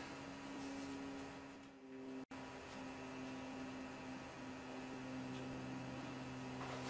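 Faint, steady low electrical hum, briefly cut by a momentary dropout a little over two seconds in.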